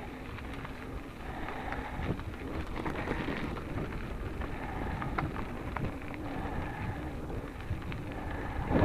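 Mountain bike rolling over a loose gravel road: tyres crunching on stones and the bike rattling in a dense run of small clicks, over a low rumble of wind on the microphone.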